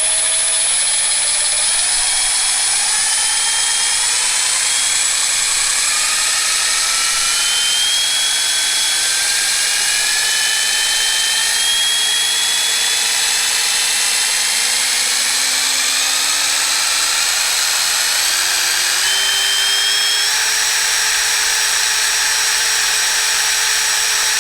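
Milwaukee M18 Fuel 2861-20 1/2-inch mid-torque impact wrench spinning free with no load in its high mode, the variable-speed trigger squeezed very gradually so the brushless motor's whine climbs slowly in small steps, then starts to wind down at the very end as the trigger is let off.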